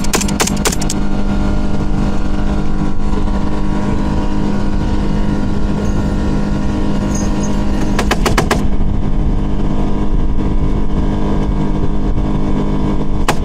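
Speedboat engine running steadily under way, with a burst of heavy .50-calibre machine-gun fire in the first second, another short burst about eight seconds in, and a single shot near the end.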